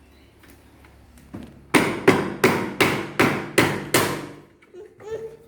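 Seven heavy knocks in quick succession, about three a second, each ringing briefly: something being struck repeatedly.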